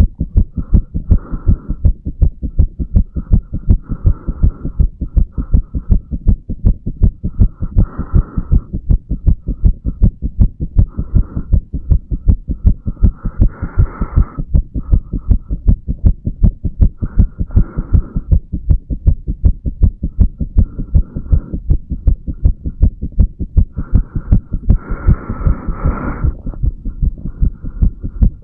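A man's heartbeat recorded at the chest over the mitral valve area: steady, regular low thumps beat after beat. A soft hiss comes and goes every few seconds.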